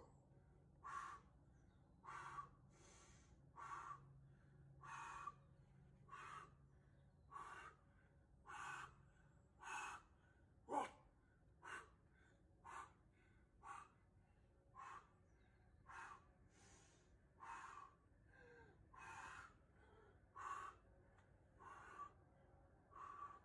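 A climber's hard, rhythmic breathing under effort on a steep route: short, forceful exhalations about once a second.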